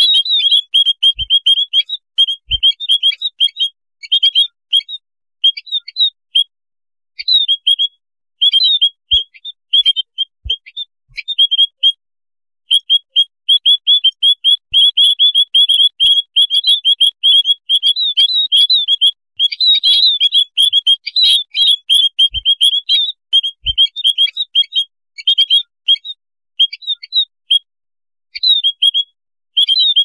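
A colony of white-headed munias chattering: rapid, high, thin chirps running together in long bursts, with brief pauses about six seconds in, around twelve seconds in and near the end.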